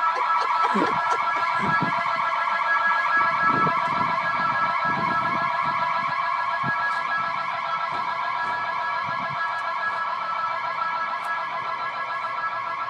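Building security alarm going off continuously: a loud, steady high ringing tone with a fast flutter. A few low thumps sound under it in the first half.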